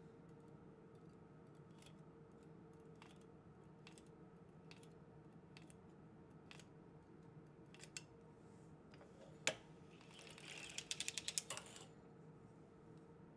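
Circular sock knitting machine being cranked, its needles clicking lightly. Scattered faint clicks, one sharp click, then a quick rattle of about a dozen clicks, over a faint steady hum.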